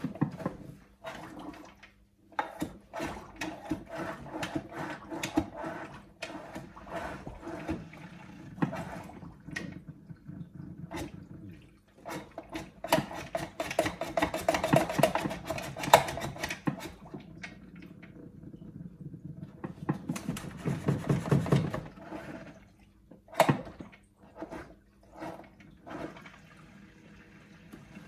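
Eheim Professionel 5e 350 canister filter starting up: water gurgling and splashing in irregular bursts as the newly connected filter primes and is not yet running smoothly. The gurgling swells twice, around halfway and again about three-quarters through.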